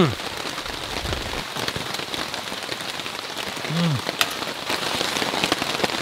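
Heavy rain falling on a camping tarp overhead: a steady hiss with many sharp drop ticks, and one louder tap about four seconds in.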